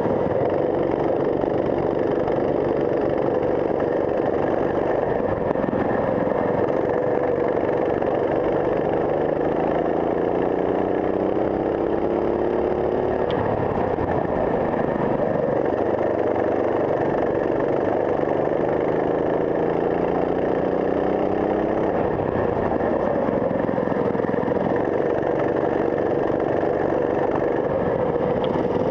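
Go-kart engine heard from onboard, running hard around a lap. Its pitch climbs in two long rising sweeps, each dropping away sharply as the driver comes off the throttle, with steadier running between.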